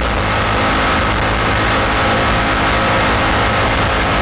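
High-performance race jet boat's engine running at speed with a steady, unchanging pitch, heard from on board the boat.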